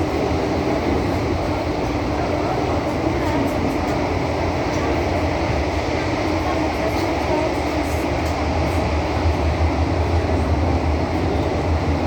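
SMRT CT251 metro train running between stations, heard from on board: a steady low rumble from the wheels and running gear with a faint steady hum over it.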